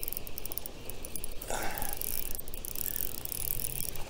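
Fishing reel clicking rapidly in spurts as a hooked bass is reeled in.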